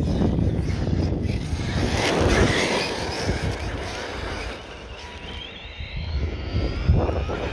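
Arrma Outcast RC car driven by a Surpass Hobby brushless motor, running along a gravel track, with a high electric whine that rises in pitch past the middle as it speeds up.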